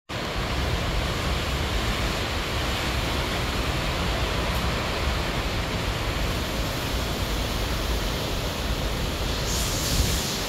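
Hurricane wind and rain rushing steadily through palms and a screen enclosure, a dense hiss with a low rumble; the hiss swells near the end.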